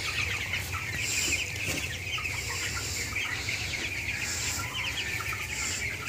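A shed full of broiler chickens clucking and cheeping, many short calls overlapping in a steady chatter.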